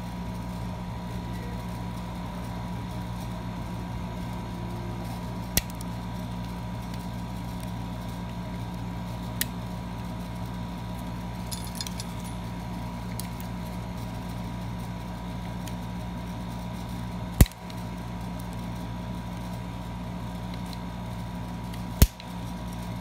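Small metallic ticks and clicks of tweezers working inside a Schlage A-series cylindrical lock knob, pressing the cylinder retainer pin and turning the tailpiece: a few faint scattered ticks, then two sharp clicks about five seconds apart near the end, over a steady low hum.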